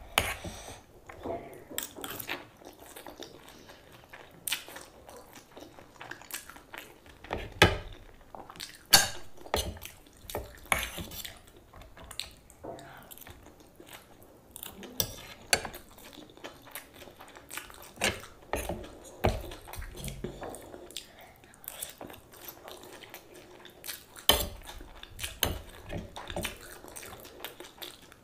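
A metal fork clinking and scraping on a ceramic plate while gathering chow mein noodles, in scattered irregular clicks, along with close-up chewing of the noodles.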